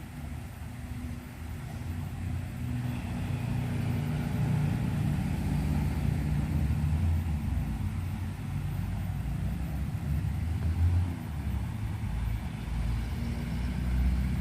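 Steady low rumble with an engine-like hum, building over the first few seconds and holding.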